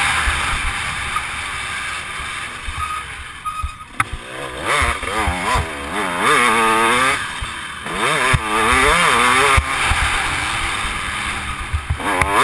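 Dirt bike engine revving up and down repeatedly as the rider works the throttle, the pitch sweeping high and dropping back several times. The engine briefly falls off about three to four seconds in before picking up again.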